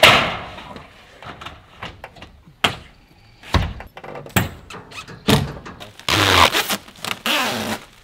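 Standing seam metal roof panel banging and thunking as it is pressed and snapped into place along its seam: one sharp hit at the start that rings out briefly, then several more knocks. Near the end, the panel's plastic protective film crinkles as it is peeled off.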